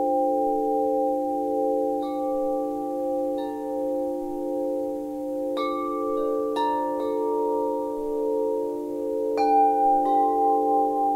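Wind chimes ringing: several long overlapping tones that sound on and waver slightly, with about seven fresh strikes at uneven intervals adding brighter, higher notes.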